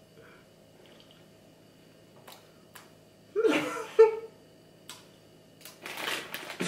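Quiet room with a few faint clicks while a piece of cookie is chewed, a short voiced sound about three and a half seconds in, and breathy laughter building near the end.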